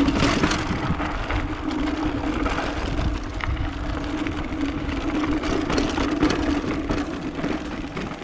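Mountain bike rolling down a rocky dirt trail: tyres crunching over loose stones and the bike rattling and knocking over bumps, over a steady buzzing drone, with wind rumble on the chest-mounted camera's microphone.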